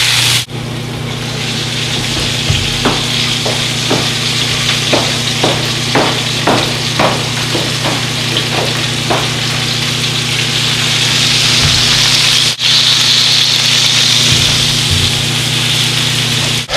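Strip steaks sizzling hard in a very hot cast-iron skillet, searing, over a steady low hum. A run of short ticks sounds through the middle.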